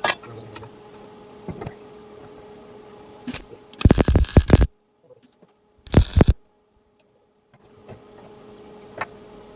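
Electric arc welder striking an arc on a cast-iron part: two short, harsh crackling bursts, about 4 and 6 seconds in, that cut off abruptly. The arc sputters out, consistent with a poor ground connection. Before the bursts there is a faint steady hum and light clicks.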